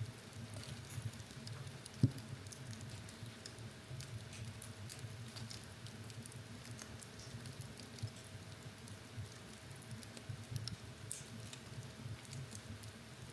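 Wood fire in a fireplace crackling, with scattered small snaps and one sharp pop about two seconds in, over a low steady rumble of the flames.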